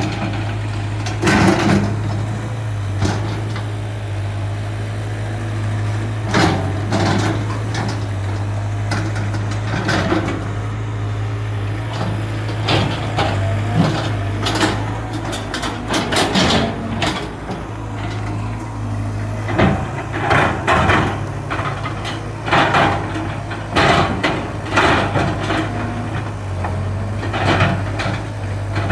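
Caterpillar 320 GC excavator's diesel engine running steadily, with frequent irregular clanks and knocks from the machine at work.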